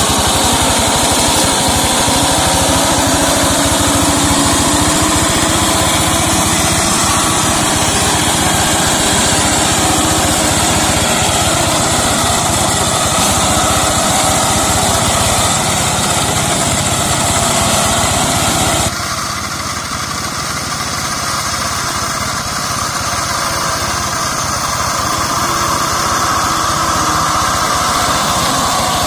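Single-cylinder diesel engine of a two-wheel hand tractor converted into a brush mower, running steadily under load as it drives through undergrowth. The sound abruptly becomes quieter and thinner about two-thirds of the way through.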